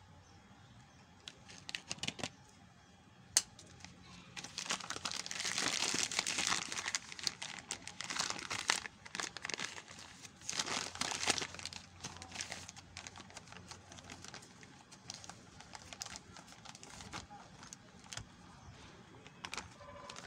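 Thin plastic milk sachet crinkling and rustling as it is handled and turned inside out, made of many quick crackles. The crinkling is loudest in a long stretch a few seconds in and again about halfway through, and fainter after that. A single sharp click comes a few seconds in.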